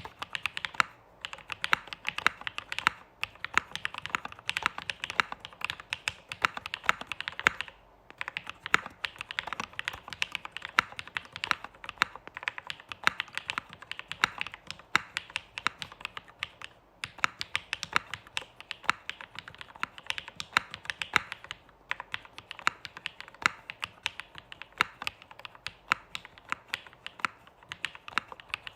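Continuous fast typing on a custom Polaris mechanical keyboard with lubed Durock POM switches and ePBT keycaps on a half aluminium plate and flex-cut PCB. Dense keystrokes with a soft bottom-out, broken by short pauses a few times.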